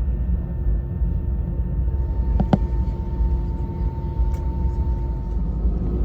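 Steady low rumble inside the passenger cabin of an Airbus A320-214, its CFM56 engines running on the ground before takeoff, with a faint steady hum. A short click comes about two and a half seconds in.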